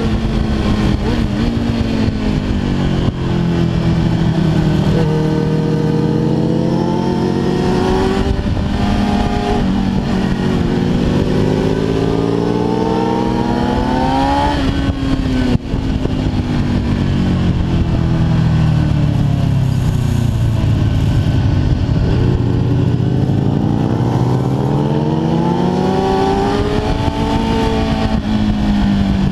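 Kawasaki ZX-10R's inline-four engine heard from on the bike, revving up and down as it accelerates and rolls off. The pitch climbs steeply about halfway through, falls away suddenly just after, then climbs long and steadily again near the end.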